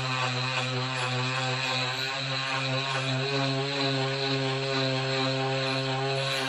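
Makita TM30D cordless oscillating multi-tool running steadily, a continuous pitched machine hum with no pauses.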